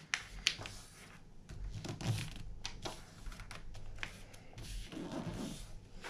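A sheet of paper being folded and creased by hand against a tabletop: faint rustling, scraping and soft ticks as fingers slide along and press the fold.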